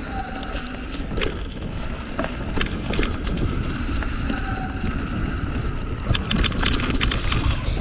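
Rigid 29+ mountain bike riding over dirt singletrack: a steady rumble of wide tyres and wind on the camera microphone, with frequent clicks and rattles from the bike jolting over bumps. The rattling gets thicker near the end.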